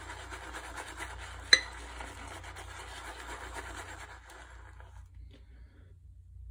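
Shaving brush swirling thick lather around a bowl, a steady wet brushing rub, with one sharp tap about a second and a half in. The lather is almost ready, and the swirling stops after about four seconds as the loaded brush is lifted out.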